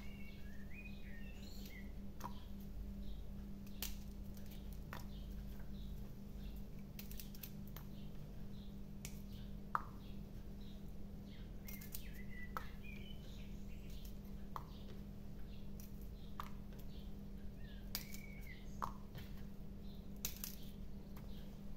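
Faint scattered clicks and small plops as halved garlic cloves are peeled and dropped into a glass bowl of liquid marinade, over a low steady hum. A bird chirps briefly three times: at the start, about halfway through, and near the end.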